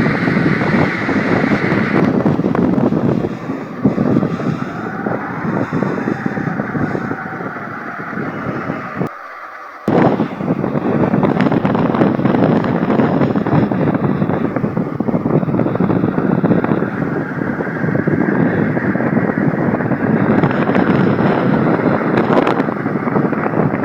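Strong gusting wind, a steady rushing noise that swells and eases. It drops away briefly about nine seconds in and comes back abruptly about a second later.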